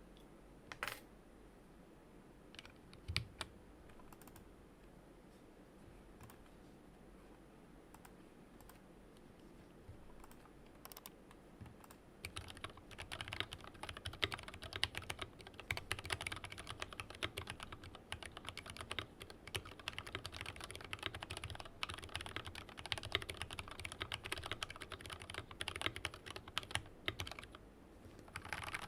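Typing on a Tokyo60 mechanical keyboard with an aluminium case, lubed and filmed nylon Lavender switches and stock keycaps. A few separate keystrokes come first, then steady fast typing runs from about halfway through, with a brief pause near the end.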